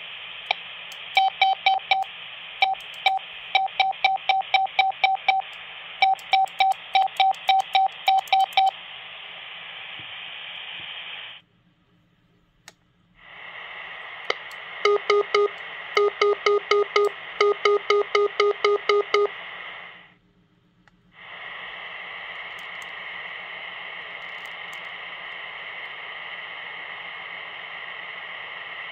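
Quansheng UV-K5 handheld radios sounding Morse code (CW) through their speakers over steady receiver hiss. There are two runs of keyed dit-dah beeps, the second at a lower pitch. The hiss cuts out twice for a second or two.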